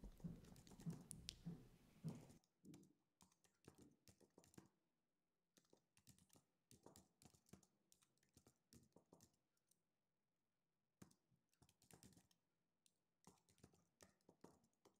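Faint typing on a computer keyboard: quick runs of key clicks with short pauses between them. A low background hum stops abruptly about two seconds in.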